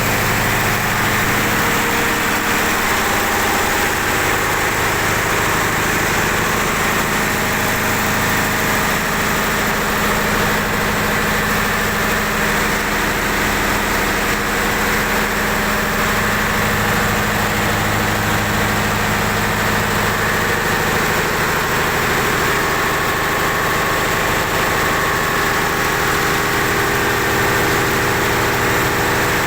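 Mitsubishi 8DC11 V8 diesel engine idling steadily. Its low hum shifts slightly about two-thirds of the way through.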